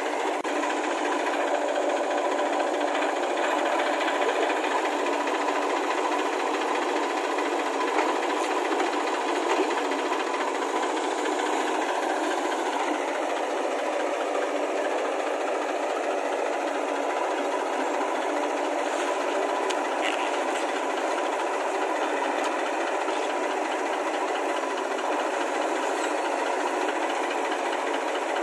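A small engine running steadily with a light rattle; the sound is thin, with no deep low end.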